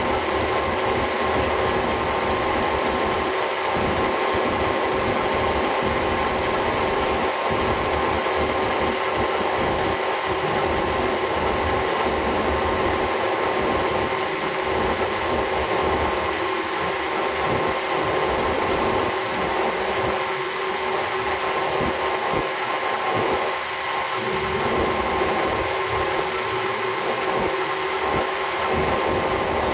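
Cummins Big Cam diesel engine of a 250 kVA generator set running steadily at a constant pitch.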